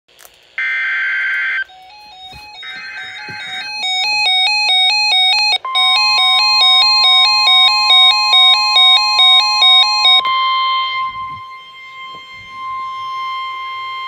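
NOAA weather alert radios sounding a severe thunderstorm warning. Two short bursts of digital alert header data come first, then one radio beeps rapidly between two pitches. About a third of the way in, the steady single-pitch NOAA warning alarm tone joins the beeping. The beeping stops about ten seconds in, and the steady tone carries on alone.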